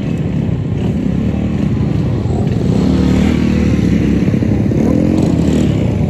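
A group of small motorcycles and scooters riding slowly past at close range. Several small engines run together, their revs rising and falling as the bikes pass.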